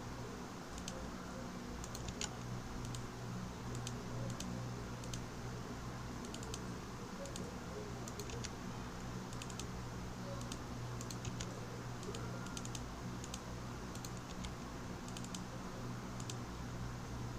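Typing and key clicks on a computer keyboard, irregular and fairly faint, over a steady low electrical hum.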